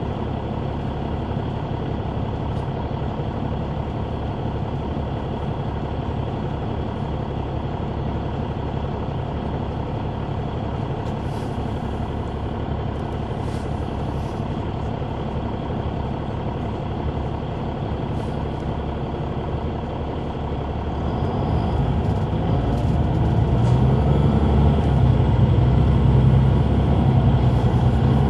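Caterpillar C9 ACERT diesel engine of a Neoplan AN459 articulated bus, heard from the rear seats inside the bus, running at a steady level, then growing louder and rising in pitch about two-thirds of the way in as the bus accelerates.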